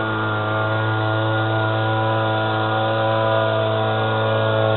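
Homemade boat motor built from a brush cutter engine, running at a steady speed with one even, unchanging pitch.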